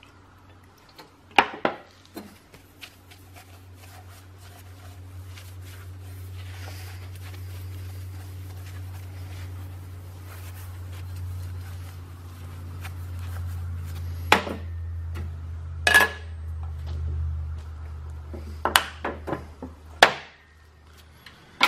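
A stainless steel exhaust tip is wiped down with an acetone-soaked shop towel. It clinks and knocks against the steel workbench as it is handled and set back down, in several sharp hits near the end. A low steady hum rises underneath and stops shortly before the end.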